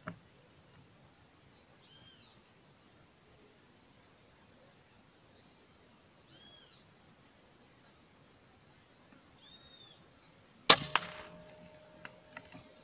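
A single sharp rifle shot, most likely a scoped air rifle, cracks out about three-quarters of the way through and leaves a short ringing tail. It sounds over a steady high insect buzz, and three short bird calls come before it.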